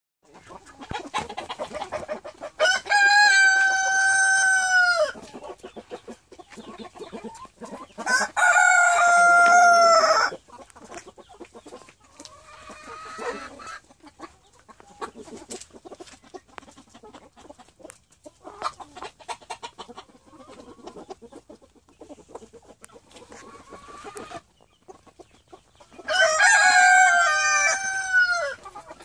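White Silkie roosters crowing three times, each crow a long held call of about two seconds that drops off at the end, with soft clucking from the flock in between.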